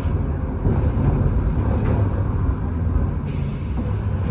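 Streetcar running along its rails, heard from inside the car: a steady low rumble of wheels and motors.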